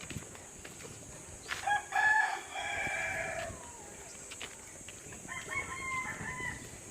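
Rooster crowing twice: a loud crow about a second and a half in, and a fainter second crow about five seconds in.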